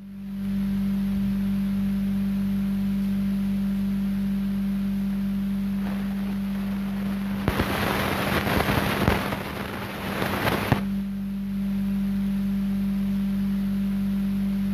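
A steady low electronic hum that starts abruptly and holds one pitch, with a rush of hiss rising over it for about three seconds in the middle.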